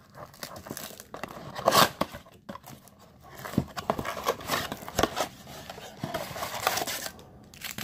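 Plastic shrink wrap crinkling and tearing as it is stripped off a cardboard trading-card blaster box, with rustling as the box is opened.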